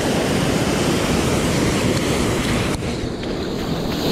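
Heavy sea surf breaking and washing over a rocky shore, a loud steady rush, with wind buffeting the microphone. About three-quarters of the way through the hiss drops away a little.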